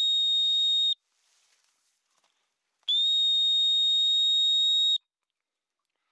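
Dog whistle blown in two long, steady, high blasts: the first ends about a second in, and the second lasts about two seconds. It is the handler's recall signal to a retriever that has swum off across the water.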